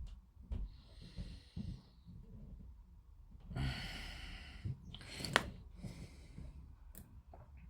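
A person breathing out audibly close to the microphone, a soft breath about a second in and a longer, stronger one about three and a half seconds in. Between and after the breaths come small sharp clicks and taps of plastic kit parts being handled, the loudest a single click just over five seconds in.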